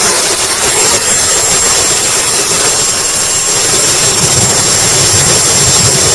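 Model turbine jet engine running in flight, a steady high whine over heavy wind rush, heard from a camera mounted on the airframe. A deeper rumble grows about halfway through.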